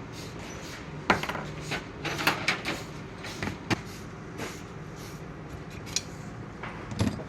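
Metal tools and parts clinking and knocking during hand assembly of a paramotor clutch: scattered sharp clanks, the loudest about a second in, a quick cluster a second later, and another near the end.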